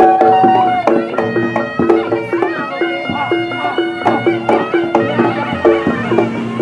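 Reog gamelan ensemble playing: a reed shawm (slompret) carries a held, bending melody over short repeated pitched gong-chime notes and sharp drum strokes.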